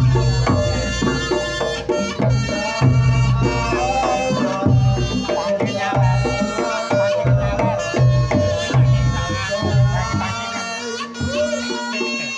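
Reog Ponorogo music: a reedy slompret shawm melody over deep kendang drum strokes, the drum strokes dropping out about two seconds before the end.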